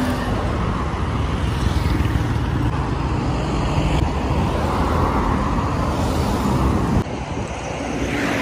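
Heavy truck running and rolling slowly on the road under the weight of a tracked excavator on its low-bed trailer, with a steady low rumble of engine and traffic noise. The sound drops off abruptly near the end.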